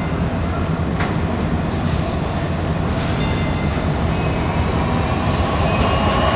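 DART light rail train approaching on street track, its running noise growing steadily louder as it nears, with a steady whine coming in near the end.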